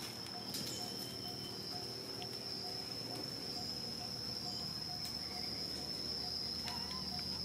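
Insects droning outdoors: one steady, high-pitched buzz that does not let up, with a fainter lower pulse repeating a few times a second beneath it.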